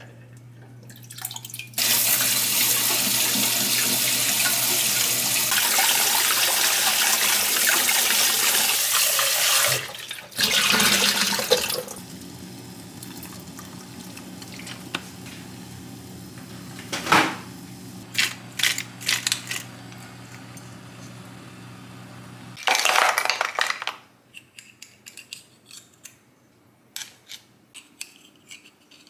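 Kitchen tap running hard into a sink for about eight seconds, then a shorter gush, with a low steady hum underneath. Near the end come light clicks of a metal spoon against abalone shells as the abalone are prised out.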